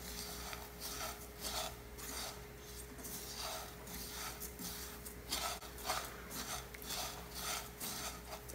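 A spatula stirring and scraping a dry farofa of cassava flour, nuts and prunes around a frying pan. The strokes are irregular and gritty, rasping, while the flour toasts.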